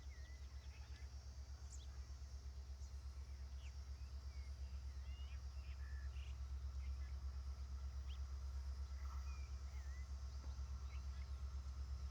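Birds chirping now and then over a steady high insect drone, with a low pulsing hum underneath that grows slightly louder.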